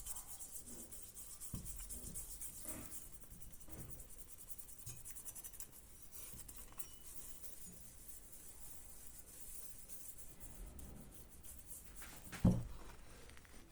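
Steady scratchy rubbing of hand abrasive work on the old axe, with a few soft knocks and one sharp knock about twelve and a half seconds in.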